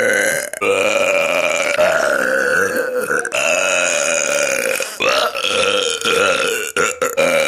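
A person belching deliberately, a run of long, drawn-out burps one after another with short breaks between them.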